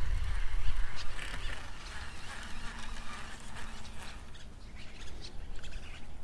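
Waterfowl calling, with a low rumble that fades over the first second or so.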